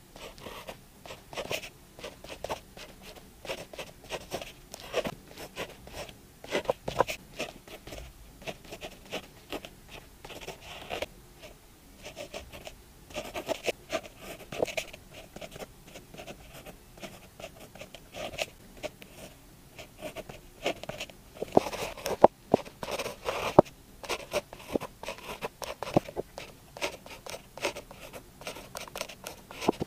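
Pen writing Chinese characters on paper: short scratching strokes one after another, with a few sharper ticks, the loudest a little past twenty seconds in.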